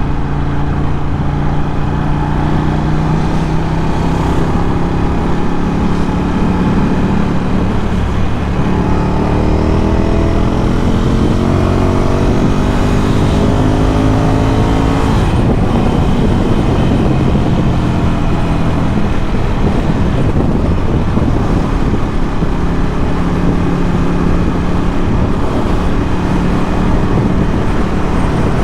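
Ducati Scrambler 1100's air-cooled L-twin engine, breathing through a Termignoni exhaust, under way. About a third of the way in it pulls up through the revs for several seconds, then drops back at about the midpoint and settles into a steady cruise.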